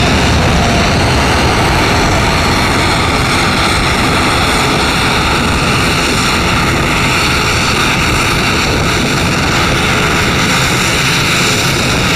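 Boeing 787-9 Dreamliner's twin turbofan engines at takeoff power: loud, steady engine noise with several high, steady whining tones over it.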